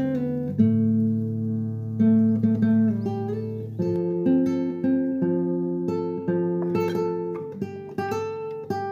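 Background music: acoustic guitar playing, with notes and chords changing about every second.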